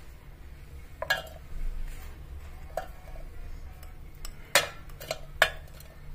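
Chopped dates and figs being tipped by hand from a bowl into a stainless steel mixer-grinder jar, giving a few short, sharp clinks and knocks against the jar. The two loudest come near the end.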